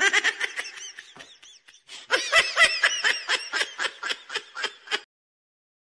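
A laughing sound effect: a high-pitched, rapid 'ha-ha' laugh in two bouts, the second starting about two seconds in, cutting on and off abruptly.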